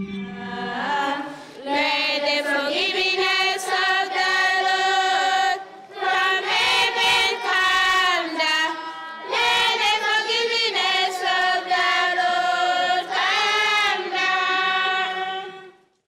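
A choir singing, many voices together in phrases, coming in about a second in and fading out at the end.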